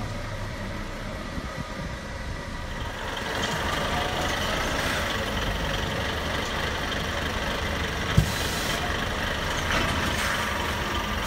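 Diesel engine of a heavy haulage truck running steadily, getting louder about three seconds in. About eight seconds in there is a single sharp knock, followed by a short hiss of air.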